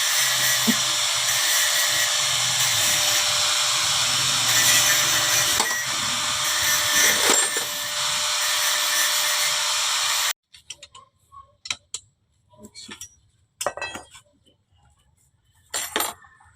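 A power tool runs steadily and loudly for about ten seconds, then stops abruptly, followed by a few scattered metal clinks and knocks from work on a manual transmission being disassembled.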